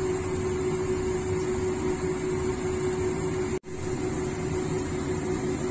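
Steady mechanical hum with a constant low tone, typical of a kitchen exhaust fan running over the stove; it drops out for an instant about three and a half seconds in and resumes unchanged.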